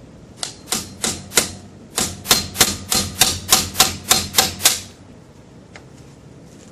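Hammer tapping a flat steel tool to drive out a Dana 35 axle seal: a run of about sixteen sharp, ringing metal-on-metal taps that speed up to about three a second after two seconds and stop about five seconds in.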